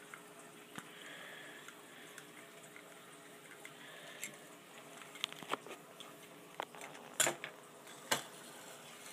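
Handling of small plastic and wooden toy trains: faint scattered clicks as a small screwdriver tightens the screw on a battery-operated toy engine's battery cover, then a few sharper clacks of toy trains knocking together near the end.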